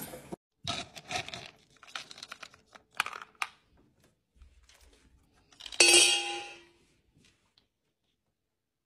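A dog eating from a stainless steel bowl, a run of scraping, clattering strokes of tongue and food against the metal. About six seconds in comes a louder clatter with a short metallic ring, the loudest sound here, then it goes quiet.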